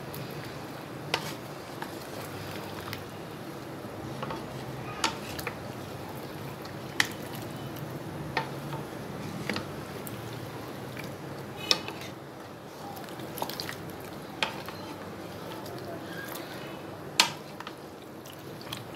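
A spatula stirs chicken, potatoes and masala gravy in a large metal pot, with scattered sharp knocks and scrapes of the spatula against the pot, the loudest near the end. Underneath is a steady low simmering hiss from the pot.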